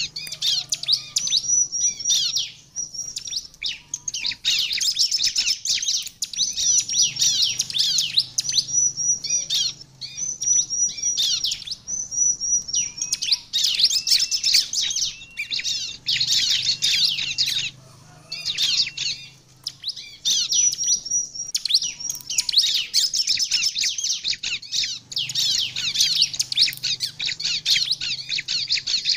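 Bar-winged prinia (ciblek) singing a rapid, high-pitched chattering song in bursts of a few seconds separated by brief pauses, repeated throughout.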